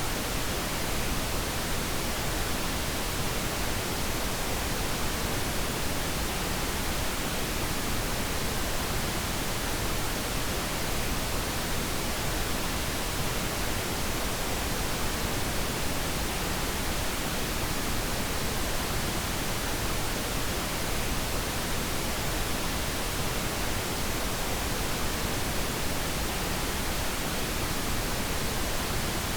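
Steady pink noise played as a sleep aid: an even, unbroken hiss spread across all pitches, with no change.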